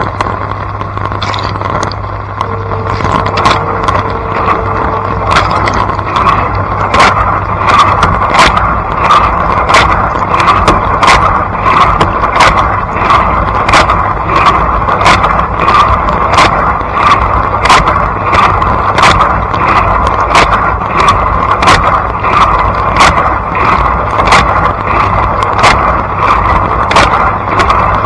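Blanco dishwasher running a wash, heard from inside the tub: a steady rush of spraying water with a low hum, and sharp regular ticks about twice a second from a few seconds in.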